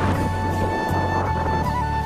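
Background music: a long held melody note with small shifts in pitch over a bass line that changes notes in steps.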